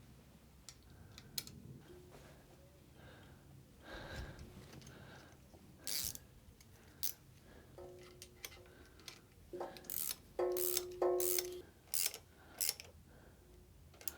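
Hand tools and steel parts clicking and clinking while a motorcycle gear shift lever is refitted to its shaft. Scattered light clicks give way to a run of louder metallic clinks, several with a short ringing tone, in the second half.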